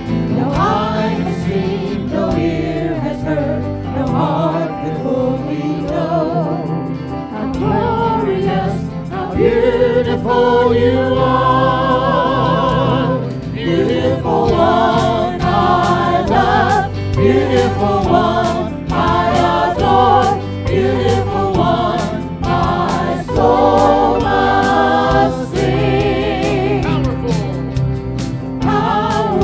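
A live worship band performing: a lead singer and backing vocalists sing over electric guitar, bass guitar, drums and keyboard.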